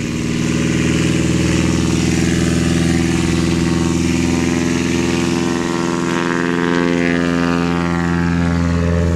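Single-engine light aircraft's piston engine and propeller running at full takeoff power, a steady loud drone. From about six seconds in, its higher tones slide down in pitch.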